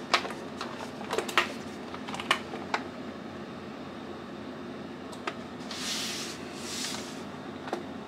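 Plastic case of a MOFii Sweet wireless keyboard being handled and turned over: scattered light knocks and clicks, most in the first three seconds, then two soft brushing swishes around six and seven seconds, over a steady background hum.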